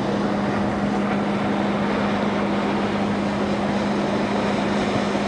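A boat engine running steadily under way, a constant low hum over a dense rush of wind and water noise; the schooner is motoring with its sails furled.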